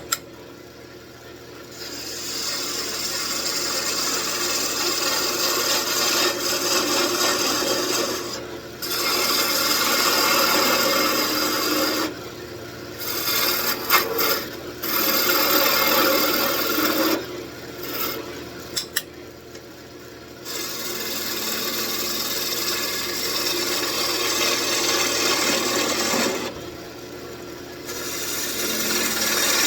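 Wood lathe running while a turning gouge cuts into the spinning wood of an old table leg, in scraping passes of several seconds. Short pauses, when the tool comes off the wood, leave only the lathe's hum. There are a couple of sharp clicks near the middle.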